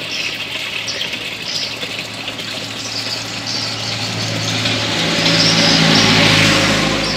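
Hydroponic pump and water running through the grow pipe: a steady rushing hiss over a low hum, swelling louder about five seconds in and easing near the end.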